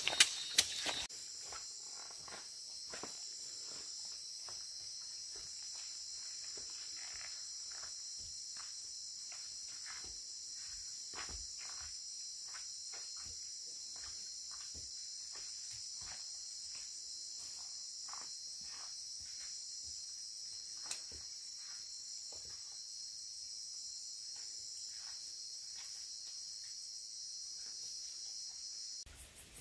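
A few sharp knocks in the first second, then a steady, high-pitched chorus of forest insects. Faint scattered rustles and snaps of footsteps through undergrowth sound over it.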